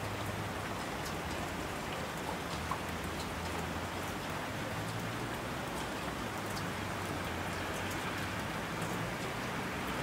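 Heavy rain falling steadily, with scattered individual drop ticks.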